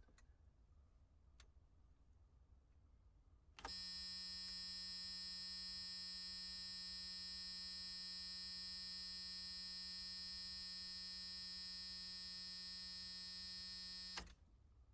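A long, steady electric buzzer, one loud unbroken buzzing tone. It starts abruptly about three and a half seconds in and cuts off sharply about ten seconds later.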